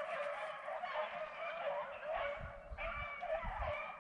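A pack of rabbit hounds baying in chorus, several voices overlapping without a break: the dogs are on a rabbit's trail and running it. A few low thumps come in the second half.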